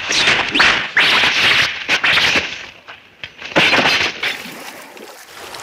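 Sword-fight sound effects from a samurai film: a run of sudden, loud slashing and crashing hits, with fresh blows about a second in and again near four seconds in, dying away near the end.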